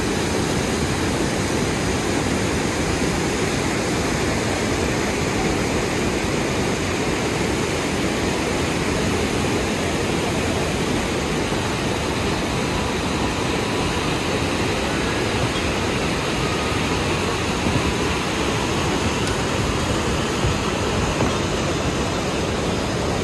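Mountain river rushing over boulders: a steady, dense noise of white water, heaviest in the low range.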